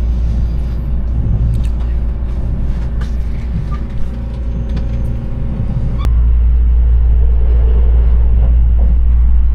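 Steady low rumble of a moving vehicle, with faint music over it. The sound changes abruptly about six seconds in, losing its high end, while the rumble carries on.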